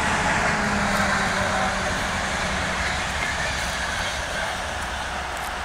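PKP Intercity passenger train passing along the line: steady rolling noise of wheels on rails, loudest near the start and slowly fading as the coaches go by.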